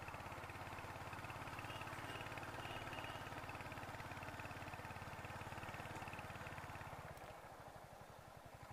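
Royal Enfield Hunter 350's single-cylinder engine running steadily under way with an even low thump, easing off about seven seconds in.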